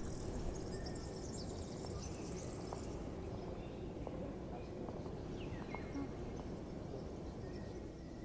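Morning outdoor ambience: a steady low background hum with faint birds chirping, a burst of high twittering in the first three seconds and a few short chirps later.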